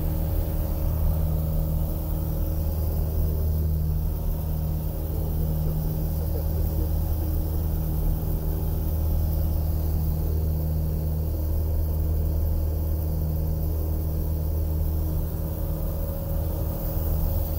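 Light aircraft's engine and propeller droning steadily, heard from inside the cabin.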